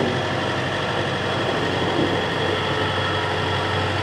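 A John Deere tractor's engine running steadily, with a constant low hum.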